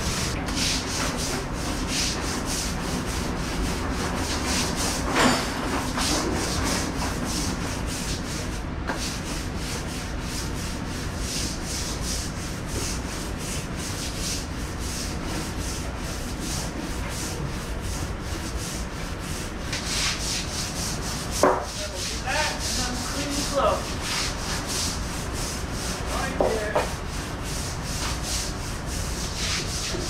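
Stiff deck brush scrubbing a kitchen floor in rapid back-and-forth strokes, over a steady background hum. A few short, louder knocks and clatters about five seconds in and again about two-thirds of the way through.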